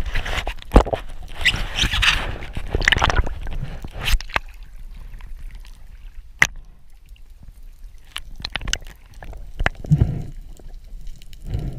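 Water sloshing and splashing around an underwater camera as a spearfisher moves at the surface, loudest in the first few seconds. After that it goes quieter, broken by a few sharp clicks and knocks, and the water surges again near the end.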